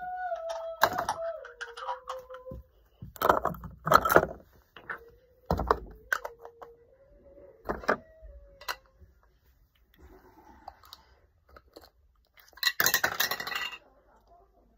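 A young girl humming softly in held notes that step between a few pitches, while small objects knock and clatter as she handles them. Near the end comes a second-long burst of rattling.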